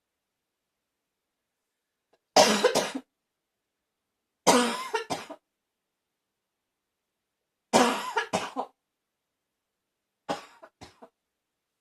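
A person's barking cough: four harsh bouts a few seconds apart, each of two or three coughs in quick succession, the last bout weaker.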